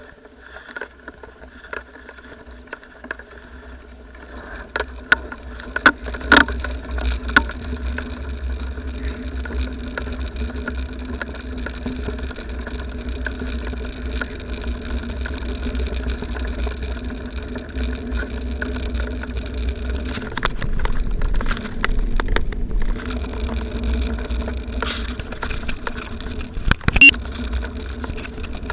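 A motor vehicle's engine running steadily, building up in level over the first several seconds, with a few sharp knocks along the way.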